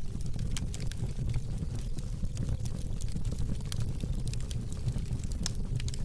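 Fire burning with a steady low rumble and irregular sharp crackles and pops throughout.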